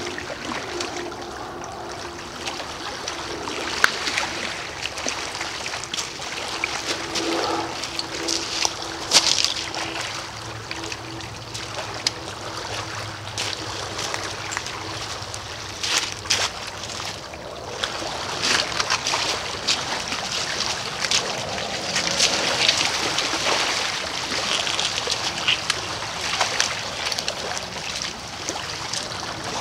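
Small waves lapping against a pebble-and-rock river shore, with scattered sharp clicks and crunches. A faint steady hum runs under it for the first half or so.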